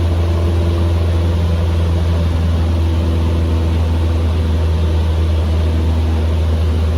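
Cessna 150M's four-cylinder Continental O-200 engine and propeller running steadily at low power, a loud, even low drone heard from inside the cockpit.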